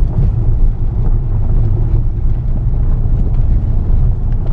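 Car driving on a dirt road, heard from inside the cabin: a steady low rumble of tyres and engine.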